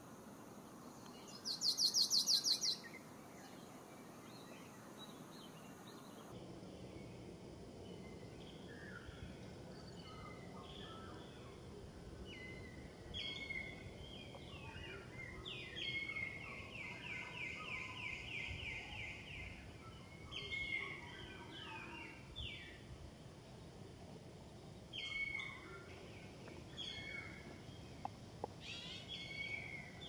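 Small forest songbirds calling over a steady background hiss. A loud, very high trill comes about two seconds in. Then there are scattered short chirps and calls, with a longer rapid trill in the middle.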